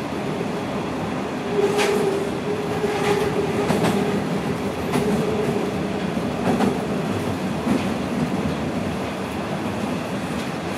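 Toronto Rocket subway train running through a tunnel, heard from inside the car: a steady rumble with a hum that holds for a few seconds, and a handful of sharp wheel clacks over the rail joints.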